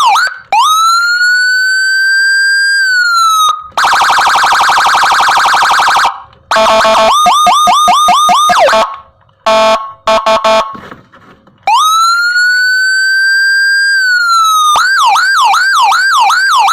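Whelen G2 electronic siren module sounding through a TOA ZH610S horn speaker, stepping through its tones. It plays a rising tone that holds and then falls, a rapid harsh pulsing buzz, fast falling yelps, a few short horn blasts, another long rise-and-fall, and finally quick up-and-down yelps.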